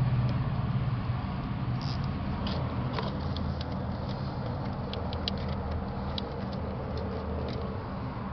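Scattered light plastic ticks and clicks of zip ties being fastened around wiring, over a steady low mechanical hum.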